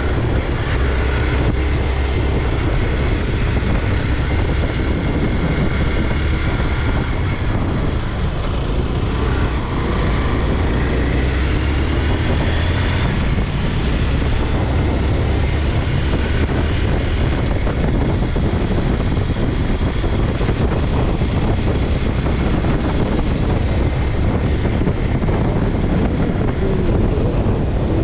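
Hero Xpulse 200's single-cylinder engine running steadily at riding speed, mixed with heavy wind rush over the rider's microphone.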